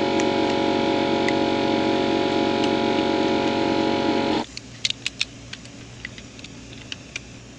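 A loud steady machine drone made of many even tones cuts off suddenly about four and a half seconds in. Sharp, irregular clicks follow from a torque wrench working hub bolts on a truck wheel.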